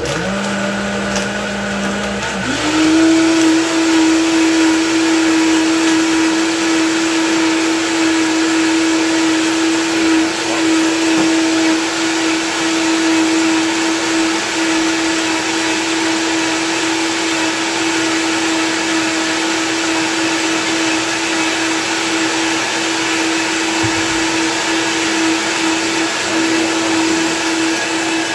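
High-powered countertop blender motor starting up and running, churning soaked tiger nuts and water. Its pitch steps up about two and a half seconds in as it goes to a higher speed, then holds steady.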